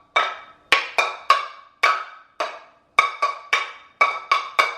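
Metal cooking pots struck as makeshift drums, beating out a quick, uneven rhythm of about fourteen hits. Each hit rings briefly with a bright metallic tone.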